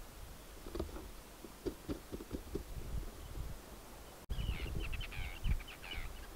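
Outdoor wind rumbling on the microphone with a few soft knocks. About four seconds in, the sound changes abruptly to birds calling in quick, repeated falling chirps, over the low rumble.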